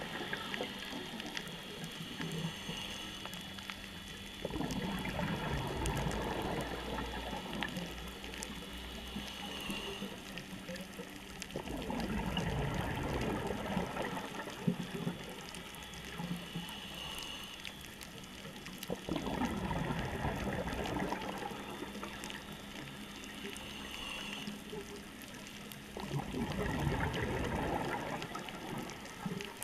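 Underwater breathing through a scuba regulator: a short hiss on each inhalation, then a burbling rush of exhaled bubbles, about once every seven seconds, four breaths in all. Faint scattered clicks sound in between.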